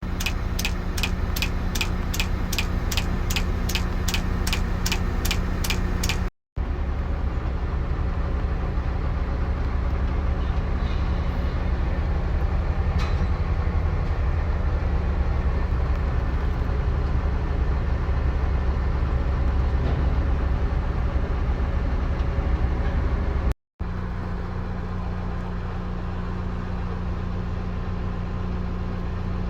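Heavy machinery engine running steadily with a low drone. For the first six seconds a rapid, even ticking of about two to three clicks a second runs over it, and the sound breaks off abruptly twice.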